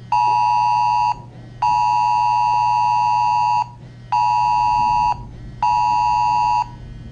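Wireless Emergency Alert attention tone from a phone: loud two-tone beeps in the standard alert cadence, a one-second beep, a two-second beep, then two one-second beeps, each separated by about half a second. It signals an incoming emergency alert, here a flash flood warning. A steady low hum runs underneath.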